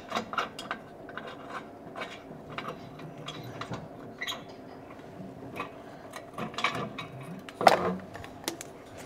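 Metal clanks and knocks of hand tools and exhaust parts as a muffler is worked off its rubber hangers under a car, with one louder knock near the end.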